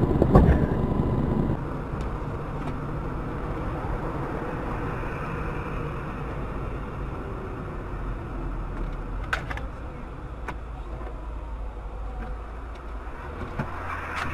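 A car's steady low engine and road rumble, louder for the first second and a half, with a couple of sharp clicks about nine seconds in.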